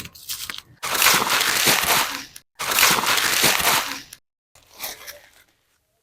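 Dry crunching and crackling in several strokes, two of them long, about a second and a half each, with a weaker one near the end.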